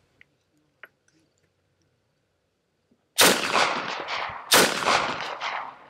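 PM63 Rak open-bolt machine pistol in 9x18 Makarov firing two short full-auto bursts, the first about three seconds in and the second about a second and a half later.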